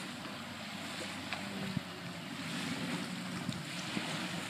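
Wind blowing over the microphone and water lapping against a boat's hull, with a few faint knocks.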